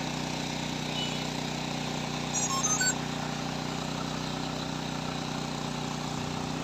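Steady motor hum running evenly, with a brief quick run of short high-pitched tones about two and a half seconds in.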